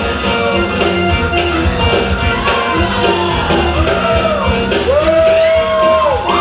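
Loud rock music with a steady beat, and a voice shouting over it in long, arching notes from about halfway through.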